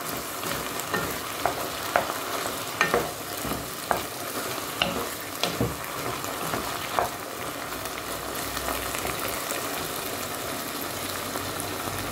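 Chicken pieces, cauliflower and broccoli sizzling in oil in a nonstick pot, stirred with a wooden spoon that knocks against the pot now and then. The knocks stop after about seven seconds, leaving a steady sizzle.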